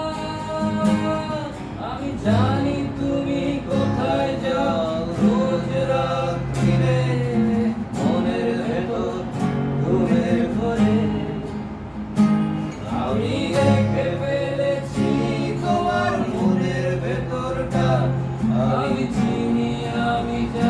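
Tayste TS-35 acoustic guitar strumming chords as song accompaniment, with a melody line over them.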